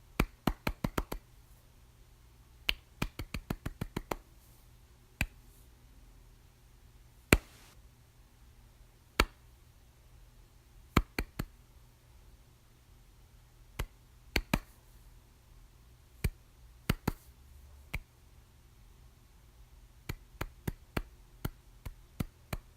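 Soft hand claps, now single, now in quick runs of four to six, with pauses of a second or more between groups.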